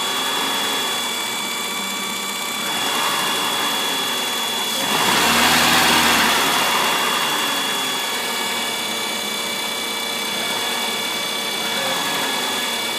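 1997 Ford Escort engine idling with a loud, steady, high-pitched whine from the back of the engine, a whine that appears only when the engine is warm. About five seconds in the throttle is blipped and the engine gets louder for about two seconds before settling back to idle.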